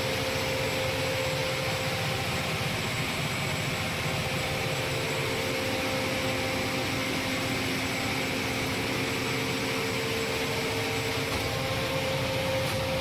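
Ship's emergency diesel generator running steadily: a constant machinery noise with a few steady tones held through, with no change in speed.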